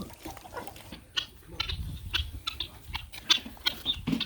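Puppies and chickens feeding: scattered sharp clicks and crunches, irregular and close together, over a low rumble.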